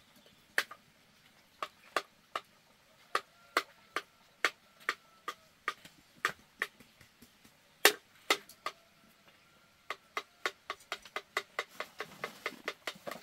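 A series of sharp knocks, like chopping or tapping on wood, spaced irregularly at first and coming quicker near the end at about three a second.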